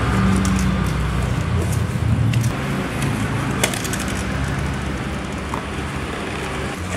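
A box cutter's blade scraping and slicing through packing tape and cardboard, with the box being rubbed and handled and a few sharp clicks along the way. A steady low rumble runs underneath.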